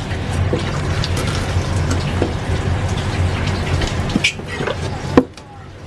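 Tap water running and splashing onto a cutting board as sea bream are washed and cleaned under it with a knife, with small wet handling clicks. A single sharp knock on the board about five seconds in.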